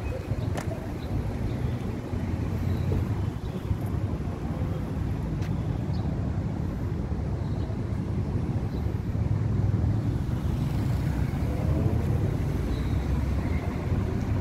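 Wind buffeting the microphone: a low, uneven rumble that swells and eases, over faint open-air background.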